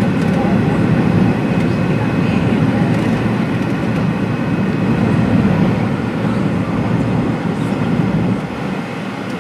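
Steady cabin roar of a Fokker 70 airliner in flight, its rear-mounted Rolls-Royce Tay turbofans and the airflow heard from a window seat, with a faint high whine over it. The noise eases a little near the end.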